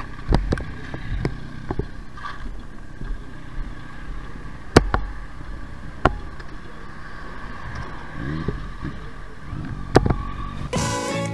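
Motorcycle running, with wind and road noise on a helmet-mounted camera, broken by several sharp knocks. Music comes in near the end.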